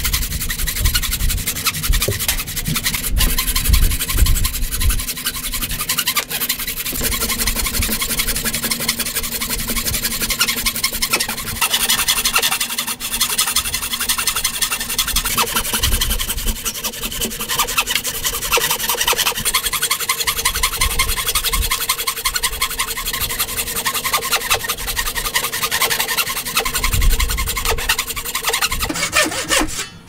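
Hand saw cutting down into the end grain of a wooden post in steady back-and-forth strokes, stopping just before the end.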